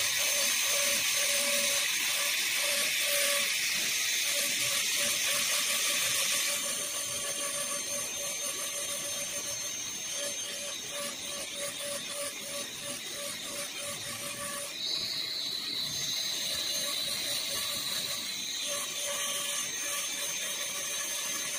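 High-speed dental handpiece with a bur running and cutting down the cusps of a model molar in an occlusal reduction: a steady high whine with hiss. The hiss eases about six seconds in, and a second whine joins for a few seconds in the second half as the bur works across the tooth.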